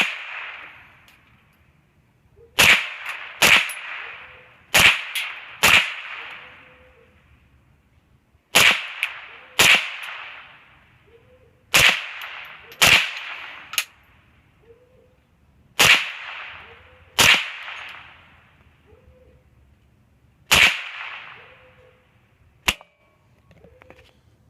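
Semi-automatic .22 LR rifle (an AR-15 with a .22 conversion upper) firing single shots at an uneven pace, about a dozen in all, often in pairs, each trailing off in a short echo. Several shots are followed a moment later by a faint sharp strike from bullets hitting steel targets.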